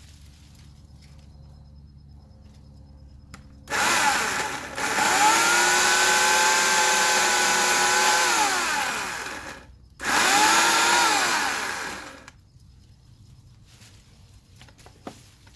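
A 14-inch Portland electric chainsaw runs twice: once for about six seconds and once for about two. Each time the motor whine climbs as the saw spins up, holds steady, and sinks as the trigger is released.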